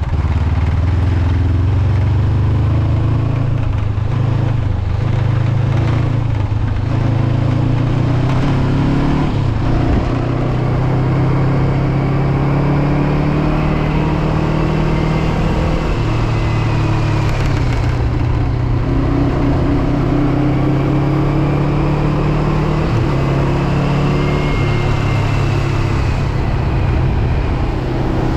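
Honda CB500X parallel-twin engine running under way, its pitch shifting up and down several times with throttle and gear changes, over steady wind and road noise. A windshield rattles along with it, loose from a missing mounting screw.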